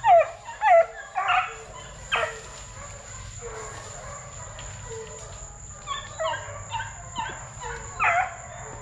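Plott Tan hound puppies (Plott hound crossed with black and tan coonhound) yelping and barking in short high-pitched bursts: a cluster at the start, one more about two seconds in, and a quick run of yelps near the end.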